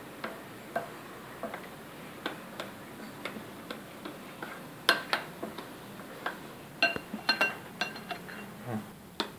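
A metal utensil clinking and scraping against a glass bowl while gram flour and water are stirred into a thick batter. Irregular light clicks, a few ringing briefly like glass, the loudest about five seconds in and again around seven seconds.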